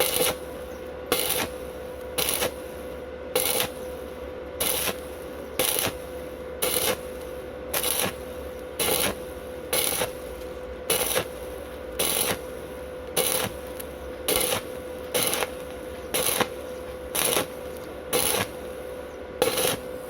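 Stick-welding arc of 2.5 mm rutile electrodes on a Wert SWI 190 inverter welder, crackling steadily and swelling into louder crackles about once a second, with a faint steady whine underneath.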